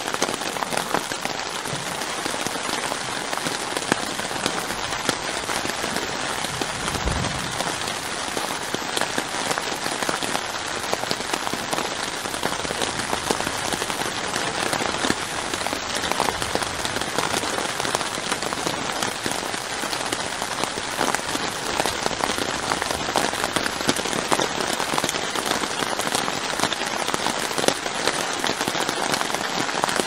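Steady rain falling on a tarp tent roof, heard from inside the tent, with a dense scatter of separate drop hits.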